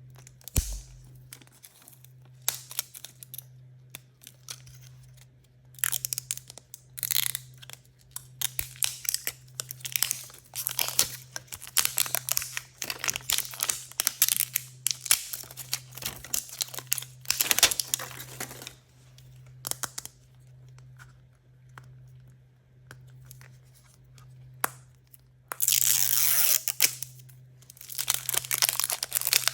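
Surprise-toy packaging torn open and crinkled by hand. After a few quieter seconds of small handling clicks, short bursts of tearing and crinkling come thick and fast, with one longer tear near the end.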